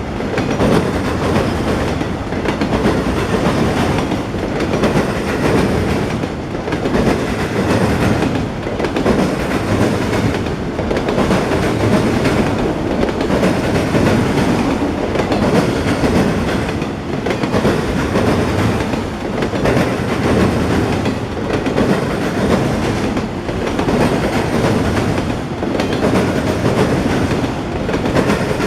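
Freight train of autorack railcars rolling past, a continuous wheel-on-rail rumble and clatter that swells and dips about every two seconds.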